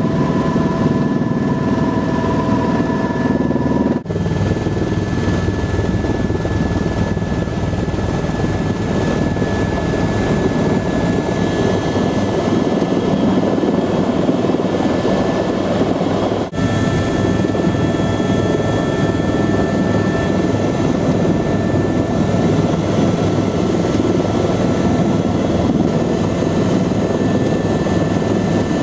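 Helicopter engine and rotor running steadily, with a thin high whine over the noise. The sound breaks off twice, about 4 and 16 seconds in, where the recording cuts between takes; the middle part is heard from inside the cabin over a helipad.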